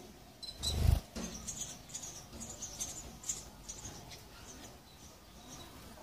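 House sparrows cheeping at a nest, a scatter of thin high peeps, with one low thump about a second in.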